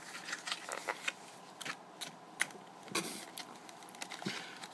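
A thin cardboard retail packet being handled and opened by hand: irregular light clicks, scrapes and rustles of card, with one sharper click about two and a half seconds in.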